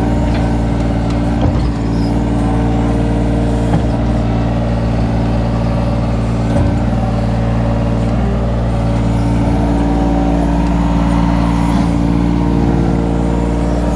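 Kobelco mini excavator's diesel engine running steadily under load while the hydraulic arm digs and swings, with a few faint knocks.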